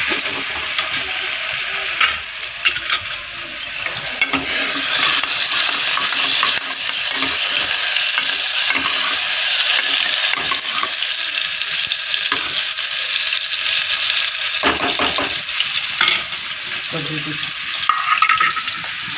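Marinated chicken and oil sizzling in hot aluminium pans on a gas stove, stirred with a steel ladle that scrapes and clinks against the metal again and again.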